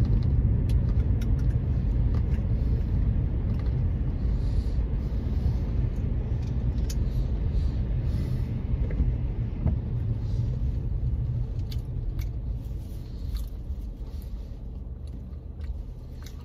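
Car's low engine and road rumble heard from inside the cabin while driving, growing gradually quieter toward the end as the car slows.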